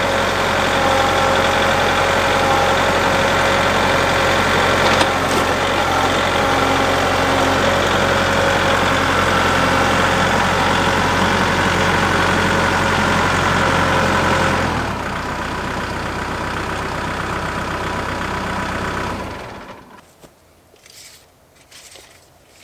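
Engine running steadily at a fast idle, dropping to a lower, quieter note about 15 s in, then shutting off about 19 s in.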